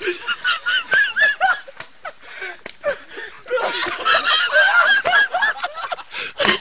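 High-pitched, honking cackles of hysterical laughter in rapid runs, one bout at the start and a longer one from about three and a half seconds in. It opens with a short splash as a person belly-flops into a mud puddle.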